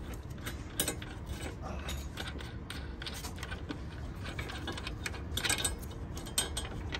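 Hand ratchet wrench clicking in short, irregular runs as a nut is turned.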